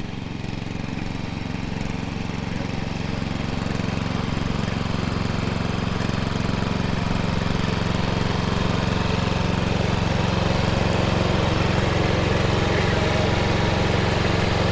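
Toro riding lawn mower's engine running steadily, growing gradually louder.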